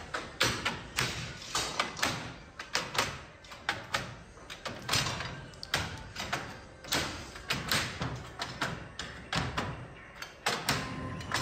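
Cloth-factory machinery knocking and thumping, one to three sharp knocks a second at an uneven spacing.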